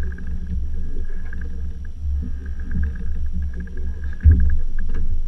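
Steady low rumble aboard a sport-fishing boat on open water, with a faint fluttering higher sound over it and a sudden low bump about four seconds in.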